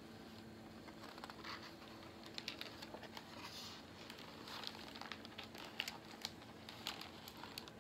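Faint rustling and light taps of paper as the pages of a hardcover picture book are turned and handled, with a soft swish of a page about three and a half seconds in.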